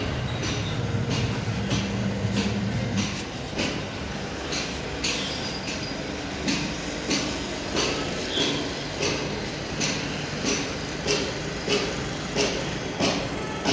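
Footsteps on a hard stone-chip floor, a steady walking rhythm of about three steps every two seconds with a sharp slap at each step, more irregular at first. A low hum runs under the first few seconds.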